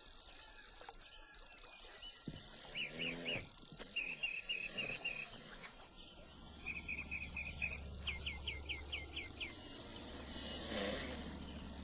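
A small bird singing short phrases of quick repeated chirps, five or six notes to a phrase. A faint steady low hum comes in about halfway through.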